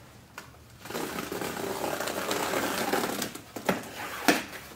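Cardboard box being handled and slid against cardboard: about two seconds of scraping and rustling starting a second in, then a few hollow knocks, the loudest near the end.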